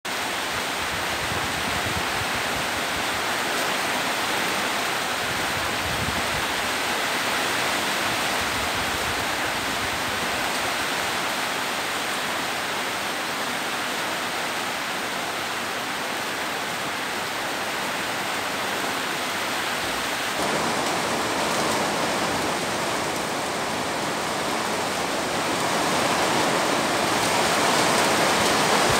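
Heavy rain and strong wind: a steady hiss of pouring rain with gusting wind, getting louder about two-thirds of the way through and again near the end.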